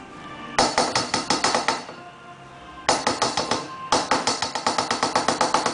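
A metal utensil rapidly clinking against a saucepan while stirring sauce ingredients, in three runs of quick strokes, about ten a second, the first starting about half a second in.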